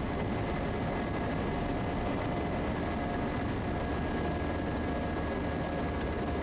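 Quest Kodiak 100's PT6A turboprop engine running at low power while the plane taxis: a steady turbine whine over propeller and engine rumble.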